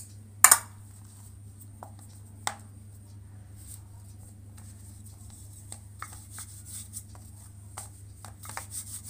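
Hands pressing and patting a ball of paratha dough in dry flour on a plastic board: a sharp tap about half a second in and another about two and a half seconds in, then light ticks and soft rubbing. A steady low hum runs underneath.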